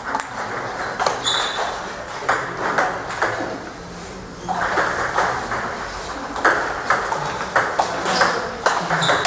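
Table tennis ball clicking off the bats and the table in a rally: a run of sharp, unevenly spaced clicks, coming thicker in the second half.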